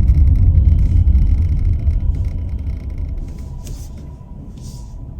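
Car's engine and road rumble heard inside the cabin, dying down from about halfway through.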